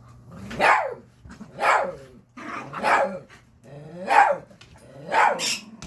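Small hairless dog giving five growly barks, about one a second, while play-fighting with a larger dog.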